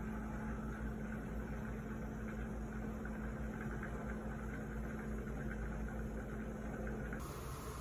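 Steady electric motor hum with a constant low tone, like a running kitchen appliance. It gives way to a softer hiss about seven seconds in.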